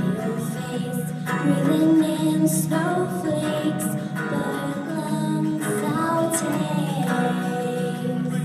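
Acoustic guitar playing steady chords, with young female voices singing a pop song live.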